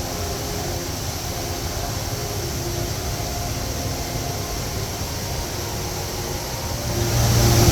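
Steady rushing noise, with faint steady tones beneath it, growing louder near the end.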